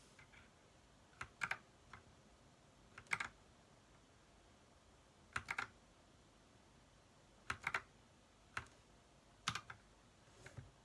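Keys of an Ajazz mechanical keyboard fitted with new keycaps, typed slowly: single keystrokes and quick groups of two or three, with pauses of about a second or two between them.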